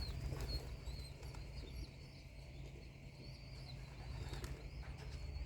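Faint, high bird chirps repeating over a low rumble of wind on the microphone, with a few soft clicks.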